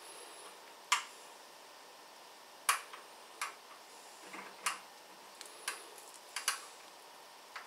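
Irregular sharp clicks and taps, about eight of them, from hands tying butcher's twine around artificial-casing sausages on a stainless steel tray.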